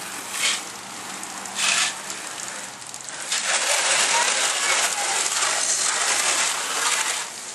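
Hose spraying water onto a car to wet it down: two short bursts, then a steady spray from about three seconds in that cuts off near the end.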